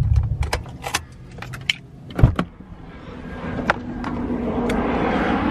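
Subaru WRX STI's low engine rumble dies away in the first half second, followed by a run of sharp clicks and knocks and one heavy thump about two seconds in, as the car is shut down and exited. From about three seconds in, a steady rushing of outside air and traffic noise rises and holds.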